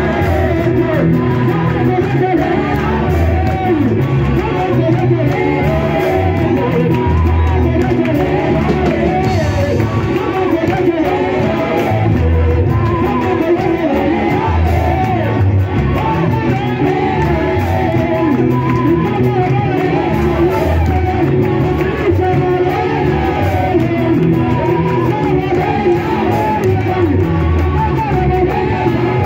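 Live gospel praise music: a group of singers singing loudly together through microphones, over keyboard and a steady low beat.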